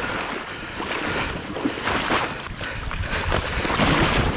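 Water sloshing and splashing irregularly around a wader's boots in river current, with wind buffeting the microphone.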